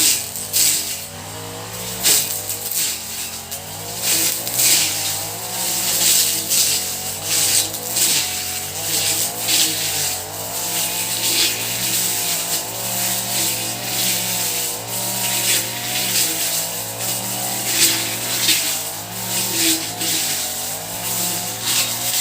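Honda four-stroke brush cutter (grass cutter) engine running at working speed, its note wavering up and down, with a loud, uneven hiss over it.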